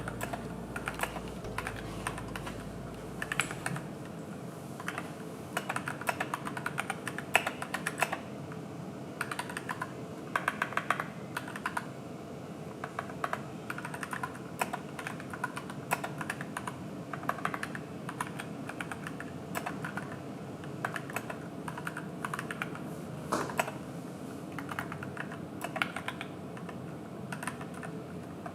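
Typing on an AKKO 3061S Tokyo R2 61-key mechanical keyboard with pre-lubed Gateron switches: quick runs of key clicks in bursts, broken by short pauses.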